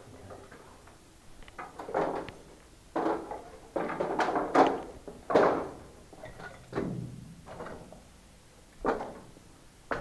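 Irregular scuffs and scrapes, about seven in all and loudest between four and five and a half seconds in: the footsteps and movement of someone walking through a brick-lined tunnel.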